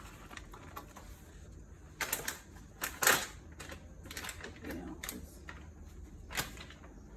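Light kitchen handling sounds: a scattering of short knocks and clicks, with the loudest about two and three seconds in.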